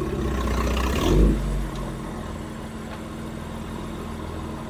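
BMW F80 M3's twin-turbo inline-six, breathing through an M Performance exhaust with an Active Autowerke mid pipe and an Akrapovic downpipe, running at low speed: a brief swell of throttle about a second in, then a steady low engine note.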